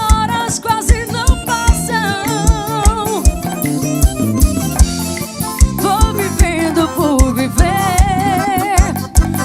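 Live band playing an arrocha passage: a steady kick-drum beat under a melody line sung or played with wide vibrato.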